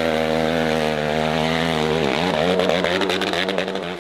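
Dirt bike engine running steadily as the bike climbs a steep hill. Its pitch dips about two seconds in and then rises again, with a spatter of clicks near the end.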